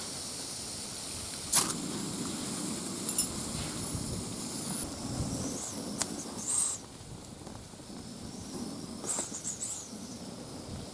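Small backpacking stove burner hissing steadily while boiling water, with a few sharp clicks and knocks of handling. The hiss drops out about halfway through, leaving low rustling.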